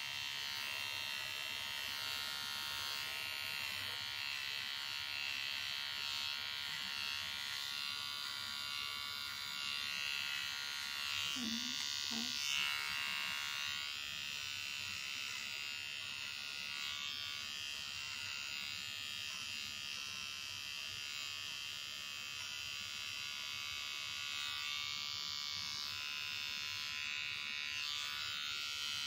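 Small electric pet trimmer buzzing steadily as it clips the fur between a cat's paw pads.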